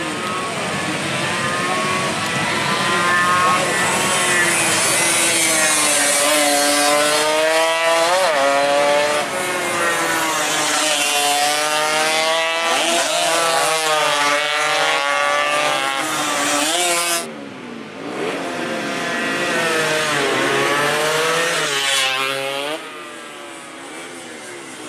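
Several two-stroke 116–125 cc underbone racing motorcycles revving hard as they race past, their engine notes overlapping and climbing and dropping with each gear change. The sound breaks off suddenly about two-thirds of the way through, then picks up again.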